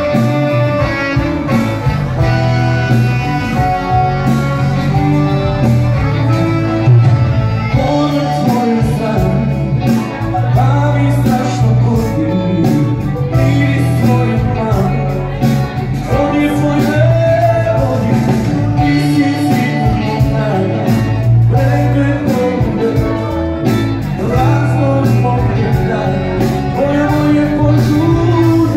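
Live band playing a song, with male and female voices singing over electric guitar and drums.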